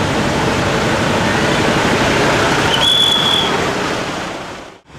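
Steady street noise of traffic on a flooded road, with rushing water and wind on the microphone. A short, high, steady whistle-like tone sounds about three seconds in. The sound fades out briefly just before the end.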